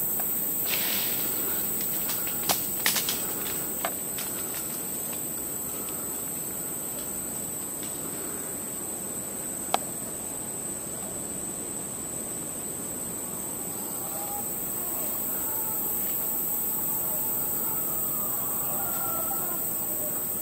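Steady high-pitched drone of insects, with a few sharp snaps in the first few seconds and one more near the middle.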